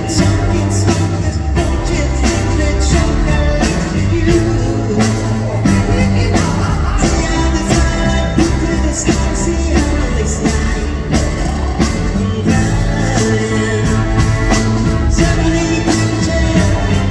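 Rock music with a steady drum beat, bass, guitar and singing.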